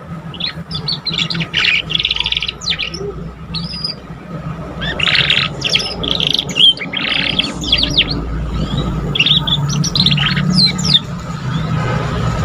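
Young canary singing, a juvenile still learning its song: bursts of chirps, buzzy trills and quick rising and falling notes with short pauses between them. A steady low hum runs underneath.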